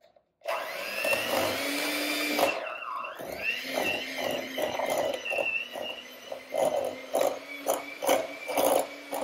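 Electric hand mixer running with its beaters in stiff, unsoftened cream cheese and sugar, starting about half a second in. The whine dips briefly about three seconds in, and the sound pulses about twice a second as the beaters work through the mix.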